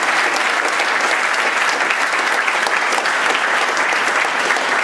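Live audience applauding, a dense, steady clapping that holds at the same level throughout.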